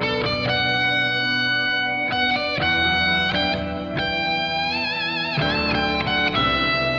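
Background music led by an electric guitar, with held notes that change every second or so and a wavering bend about five seconds in.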